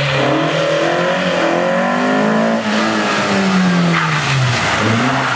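Renault 12 Gordini rally car's four-cylinder engine revving hard as it takes a bend. The revs climb, drop about four seconds in as the driver lifts, then rise again as it accelerates away.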